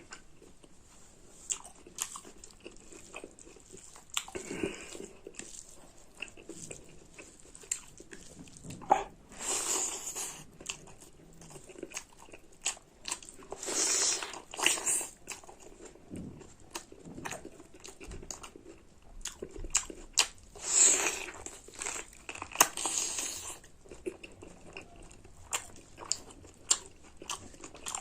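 Close-up eating sounds of a person biting and chewing pork curry with rice: wet mouth clicks and crunches, with several longer noisy bursts of chewing or slurping.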